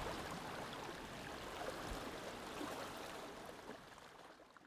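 Shallow seawater washing and trickling over rocks, a steady noisy wash that fades out near the end.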